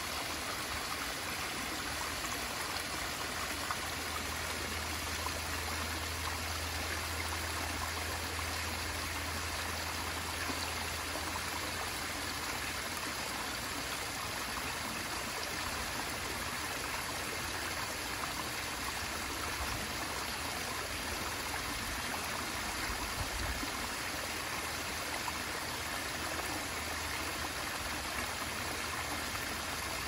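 Small landscaped rock waterfall spilling into a garden pond: a steady, even rush and splash of falling water.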